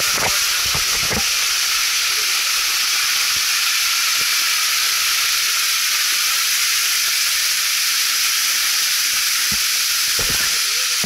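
Waterfall spray falling close in front, a steady hiss of water with no break. A few low knocks near the start and near the end.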